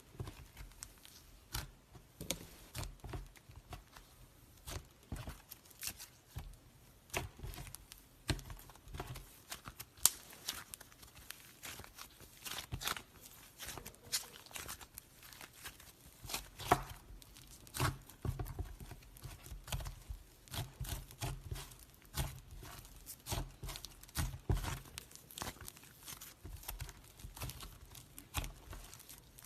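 Slime being squeezed, stretched and pulled apart by hand, with many small irregular crackling pops and sticky tearing sounds.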